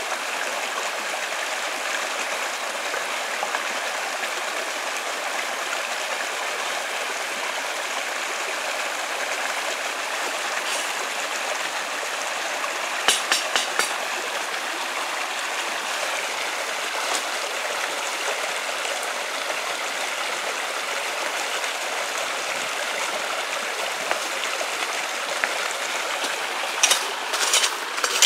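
Steady rushing of running water, like a stream, with a few short sharp clicks about halfway through and a cluster of knocks near the end.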